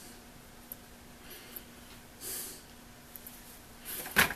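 Hands handling old wiring in an electric motor's connection box: soft scraping and rustling strokes, then a single sharp knock about four seconds in.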